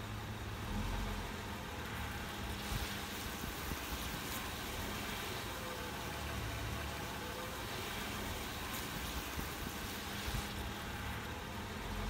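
Car engine idling, a steady low hum, with a few faint ticks.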